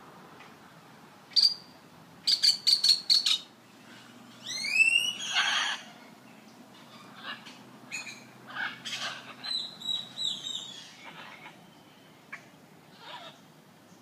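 Macaws calling: harsh squawks and shrieks in scattered bursts. The loudest are a rapid run of about six sharp calls and a long harsh squawk in the first half, followed by a string of shorter squawks.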